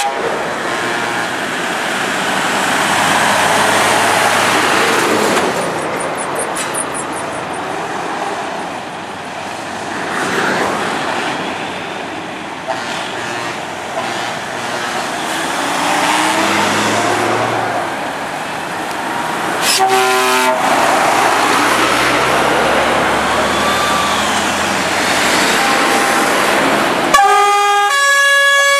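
Convoy of trucks driving past with a continuous diesel-engine rumble. A short truck-horn blast comes about two-thirds of the way in, and near the end loud multi-tone air horns sound in a series of short, alternating blasts.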